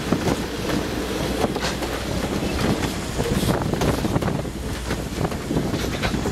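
Passenger coaches rolling past close by, their steel wheels clicking and knocking over the rail joints in a steady rumble, with wind buffeting the microphone. The last car passes near the end.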